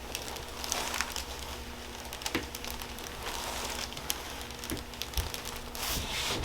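Faint rustling and scattered soft clicks of a body and clothing shifting on a padded treatment table. A thin steady hum runs underneath and stops near the end.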